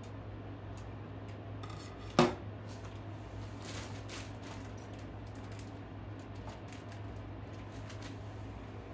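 Kitchen knife and utensil clatter: one sharp clack about two seconds in, then lighter clicks and soft plastic rustling as chopped bell pepper goes into a zip-top bag. A steady low hum runs underneath.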